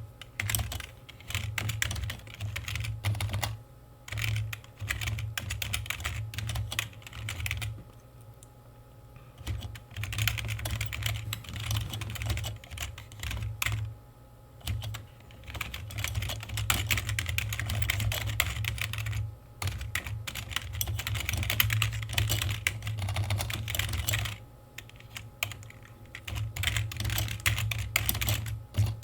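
Computer keyboard being typed on in fast runs of keystrokes, with short pauses every few seconds.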